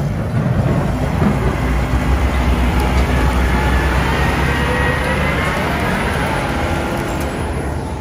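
Heavy vehicle engine running close by, a steady low rumble with a faint whine above it, easing off near the end.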